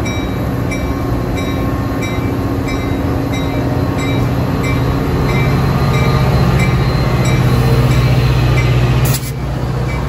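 Metra F40PH diesel-electric locomotive running under power as it pulls its train past, the engine drone growing louder, then dropping abruptly about nine seconds in. A faint high tick repeats about every 0.7 s throughout.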